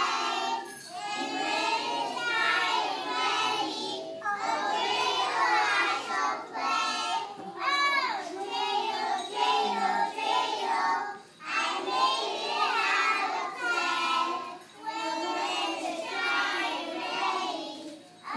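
Group of pre-kindergarten children singing a song together, in sung phrases with brief pauses between lines.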